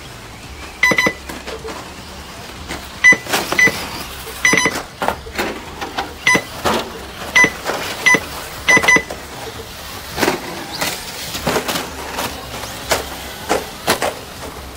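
About a dozen short, sharp electronic beeps at irregular intervals, typical of an RC race lap counter registering cars as they cross the timing line. Behind them is a steady background of RC cars running on the dirt track.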